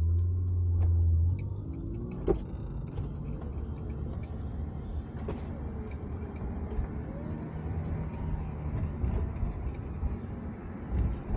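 Cabin sound of a 1998 BMW 328i (E36) straight-six running through an aftermarket Remus exhaust while the car drives off and accelerates: a loud deep drone for the first second or so, then engine pitch rising and changing under steady road noise, with a couple of sharp clicks.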